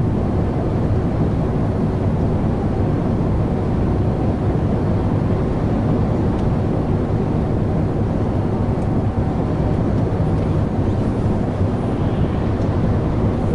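Steady engine and road noise inside a semi-truck's cab at motorway speed, the engine pulling as the adaptive cruise control picks up speed.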